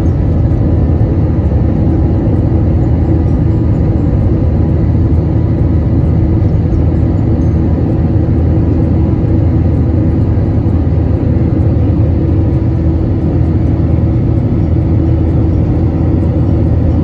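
Jet airliner's under-wing turbofan engines and rushing air heard inside the passenger cabin during the climb after takeoff: a loud, steady, deep rumble with a few steady hum tones running through it.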